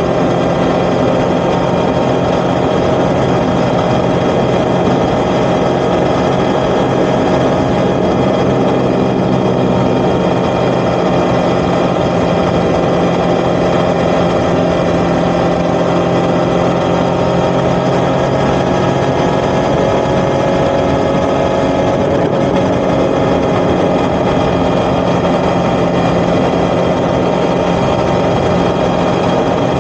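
Yamaha XSR900's three-cylinder engine running steadily through an Akrapovic titanium exhaust, its pitch holding level the whole time.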